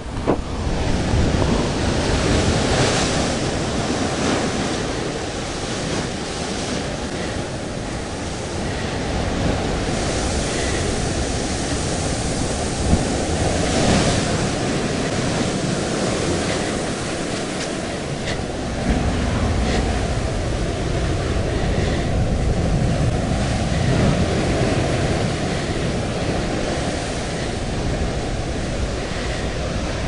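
Heavy storm surf breaking and washing around rocks, a continuous rushing roar that swells as each wave comes in, with strong wind buffeting the microphone.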